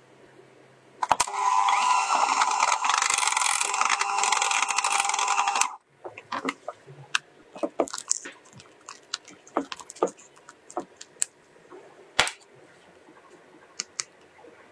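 Electric hand mixer running for about five seconds, beating espresso into whipped cream in a glass bowl. After it stops, a spatula clicks, taps and scrapes against the glass bowl as thick cream and mascarpone are folded together.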